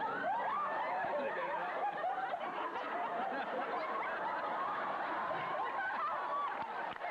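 Many voices laughing and squealing at once, high-pitched and overlapping.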